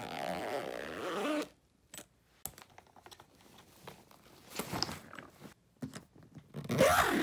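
Suitcase zippers and packed contents being handled: soft rustles and scattered clicks, with a brief zipper run midway. A short pitched, voice-like call sounds at the start and a louder one near the end.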